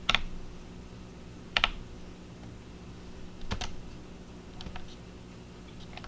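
Three sharp clicks, roughly one and a half to two seconds apart, with a few fainter ticks after the last, over a low steady hum.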